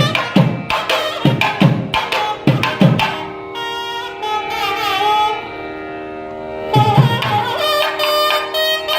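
South Indian classical-style music: quick drum strokes, then from about three seconds in a held, gently bending melody over a steady drone, with the drumming coming back near seven seconds.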